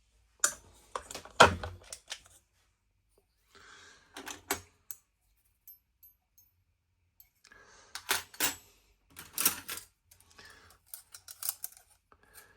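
Small metal watchmaker's case-opener tools clinking and clattering as they are handled, in several short runs of sharp clicks and knocks with pauses between.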